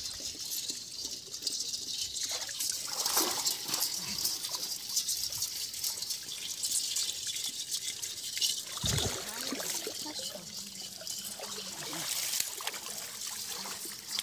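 Shallow water splashing and trickling as hands and a bamboo-rimmed hand net are worked through weedy water, with heavier splashes about three seconds in and again near nine seconds.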